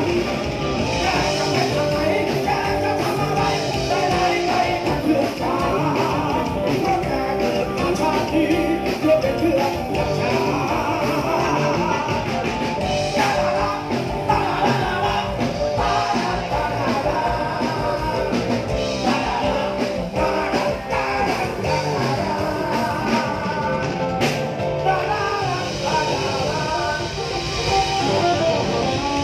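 Live band music with singing over it, played continuously at a steady level.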